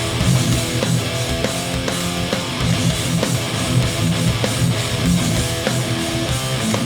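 Live hardcore punk band playing electric guitars and drums, with regular drum hits through a dense, steady guitar wall.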